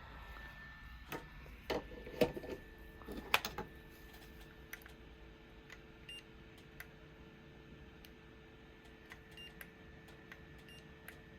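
A few sharp clicks and taps of tools being handled on the workbench, then a steady low electrical hum from about two and a half seconds in.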